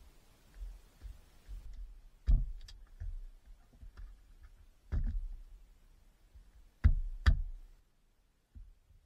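Soft scuffing of hands in snow, then a handful of sharp knocks and clinks of a metal cooking pot being handled and set on a small campfire, the loudest two close together about seven seconds in.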